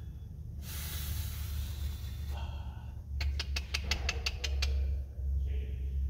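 Handling noise of hand repair work on an electric forklift's frame. A rough rubbing hiss lasts nearly two seconds, starting about half a second in; about a second later comes a quick run of about ten sharp clicks, at roughly six a second. A steady low drone sits underneath throughout.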